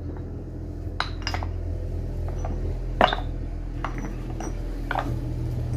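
Sharpening stones being handled and set down, knocking against one another and a hard surface in about seven separate clinks and knocks, the loudest about three seconds in.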